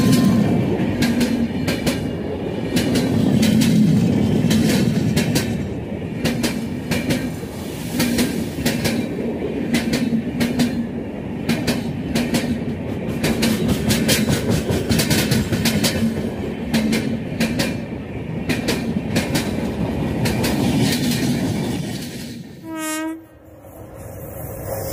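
Express passenger train coaches passing close by at speed, the wheels clicking rapidly over rail joints over a steady rumble. The noise fades near the end, a short horn blast sounds, and the rumble of the next train starts to build.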